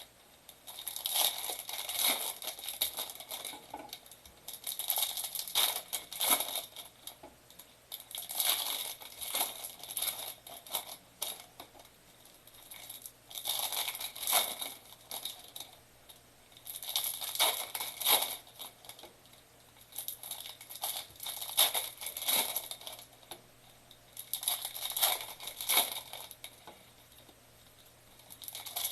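Plastic wrapping on trading-card boxes and packs being torn open and crinkled by hand, in bouts of a couple of seconds every few seconds.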